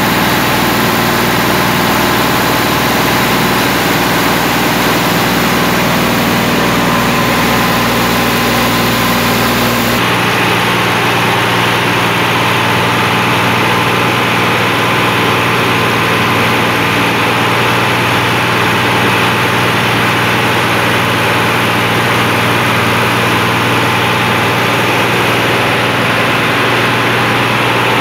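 New diesel engine running steadily and loudly under part load on a dynamometer during its run-in. The tone of the running shifts abruptly about ten seconds in.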